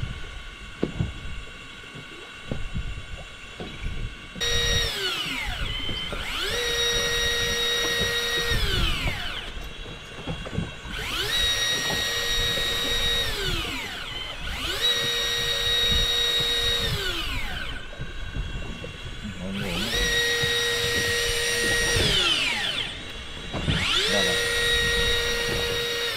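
Small electric motor run in repeated bursts: it spins up to a steady whine, holds for about two seconds, then winds down, about five times, roughly four seconds apart. Before the first run there are a few faint knocks.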